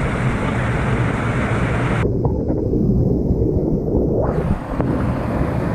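Steady rushing roar of a waterfall, heavy in the low end, with wind buffeting the microphone. About two seconds in, the sound turns muffled for roughly two seconds, then opens up again.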